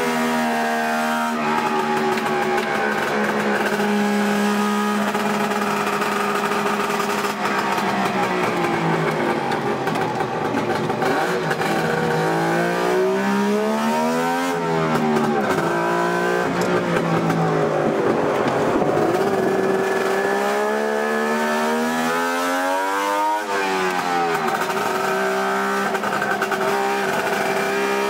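Three-cylinder two-stroke engine of a 1000 cc DKW, heard from inside its cabin under racing load, its pitch dipping and climbing again twice as it slows for bends and accelerates out.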